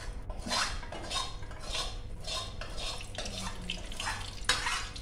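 Cooking oil poured from a bottle into an empty metal wok, with clinks of metal kitchenware in short bursts a few times a second and one sharper clank near the end.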